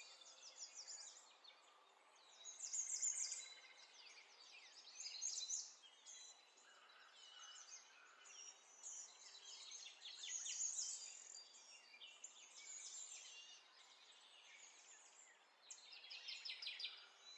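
Faint songbirds chirping in the background, in repeated bouts of quick high twitters with short pauses between them.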